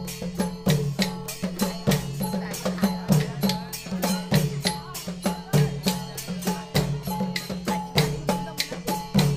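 Thai long drums (klong yao) played together in a fast, steady procession rhythm, about four to five beats a second, with bright metallic strikes ringing over the drumming.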